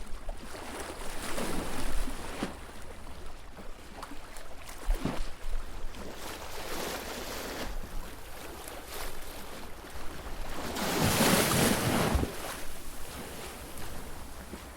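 Sea waves washing in, several surges of rushing water, the loudest and longest about eleven seconds in.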